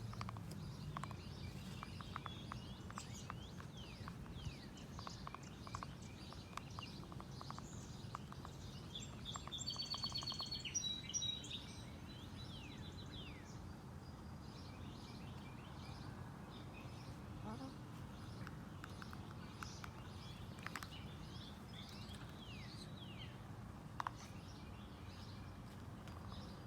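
Chicken preening, her beak making small, scattered woodpecker-like tapping clicks against her feathers, thickest in the first half. Wild birds chirp briefly about ten seconds in, over a steady low background hum.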